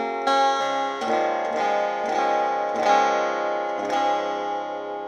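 Instrumental music of plucked strings, a run of notes that ends on a chord about four seconds in, which rings on and fades.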